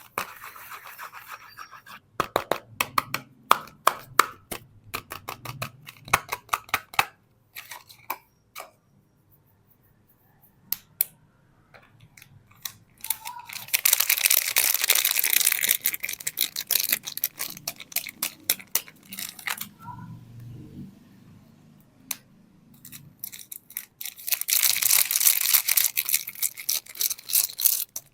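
Soap packaging being unwrapped by hand: wrappers tearing and crinkling in bursts of sharp crackles, with two longer spells of dense crackling, one in the middle and one near the end.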